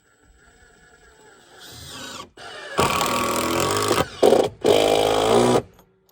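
Power drill running in bursts: it winds up over the first two seconds, then runs in three loud bursts, the first about a second long, a short one, and a longer last one.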